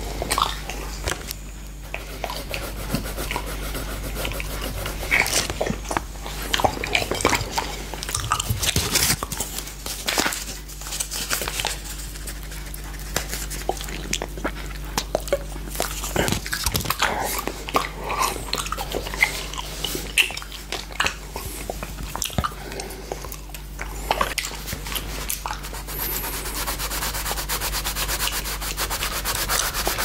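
Mouth sounds of a tongue licking a glass plate with popping candy: wet smacks and scattered sharp clicks and crackles. A colored pencil scratches on paper alongside, turning into a steadier rubbing near the end.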